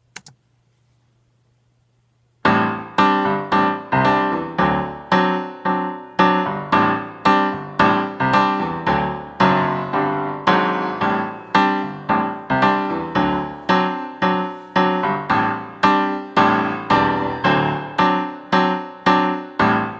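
Sequenced keyboard backing track playing the chord progression of a samba tune in a steady rhythm, about two chord attacks a second. It starts about two seconds in, after a short near-silence.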